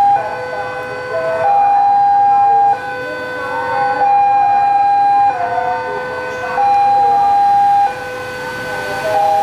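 Railway level-crossing warning alarm sounding as a train approaches: an electronic cycle of a steady high tone held for about a second and a quarter, then a warbling tone, repeated over and over.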